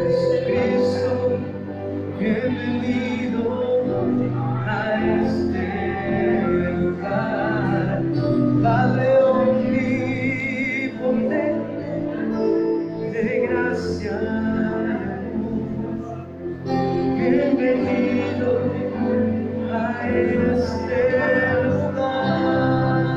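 Church worship music: a song sung by voices over steady instrumental accompaniment.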